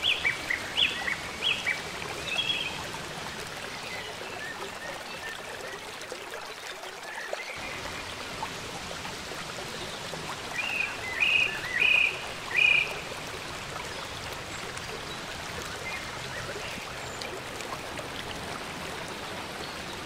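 Water cascading over a rock waterfall makes a steady rushing splash. Short high chirps cut through it in two brief bouts, at the start and again about halfway through.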